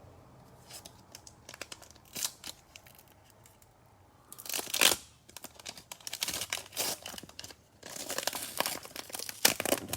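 A cellophane-wrapped trading-card cello pack being torn open and crinkled by hand, with one loud rip about halfway through and crackling wrapper handling after it.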